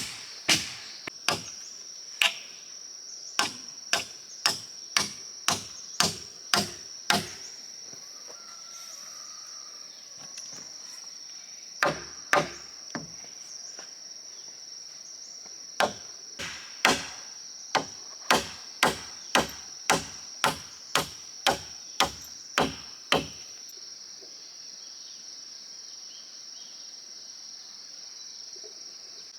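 Repeated sharp blows of a hand tool on wood, about two a second, in runs with pauses, stopping a little before the end. Insects buzz steadily and high-pitched throughout.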